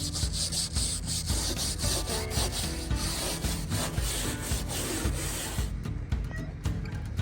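Steady abrasive rubbing on teak wood, stopping about six seconds in, over background music.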